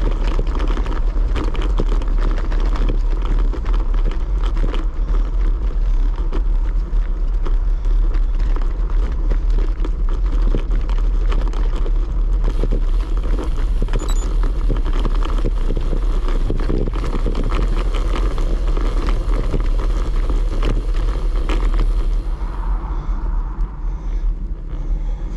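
Road bicycle rolling over cobblestones: the tyres and frame rattle in a dense, irregular clatter over a steady low rumble. Near the end the rattle eases as the bike runs onto smooth tarmac.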